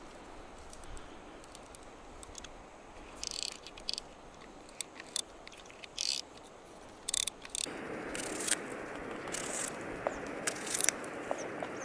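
Light clicks of a spinning reel and rod being handled, then crisp crunching snaps as a knife slices through a cucumber held in the hand, over a steady outdoor background hiss that grows louder about two-thirds of the way in.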